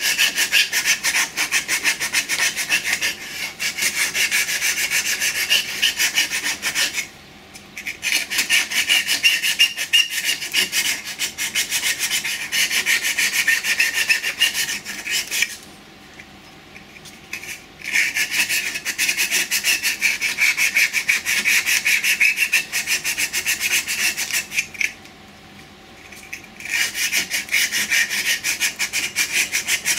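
240-grit abrasive paper held against a turned wooden tulip spinning on a wood lathe, giving a loud rasping rub made of fast, even ticks. The sanding lifts off three times, for a second or two each, about 7 s in, midway and near the end.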